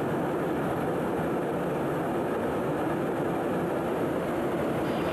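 Steady cabin noise of a KC-135 tanker in flight, heard from inside the boom operator's compartment: a constant rush of airflow and engines.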